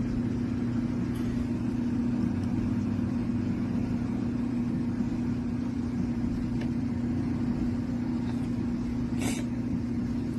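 A steady low mechanical hum, like an engine or motor running, with a few constant low tones. A single sharp click comes about nine seconds in.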